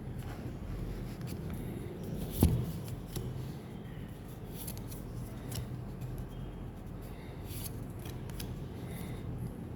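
Pokémon card packs being handled and opened: scattered short crinkles and clicks of the foil wrappers and cards, with one loud knock about two and a half seconds in, over a steady low hum.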